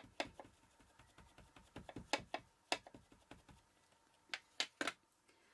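VersaMark ink pad dabbed repeatedly onto a clear stamp on an acrylic block, inking it: a run of light, irregular taps and clicks, with a few sharper ones near the end.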